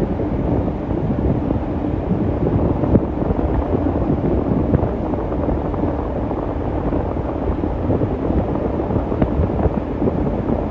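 Steady low rumble of a passenger ferry under way, with wind buffeting the microphone.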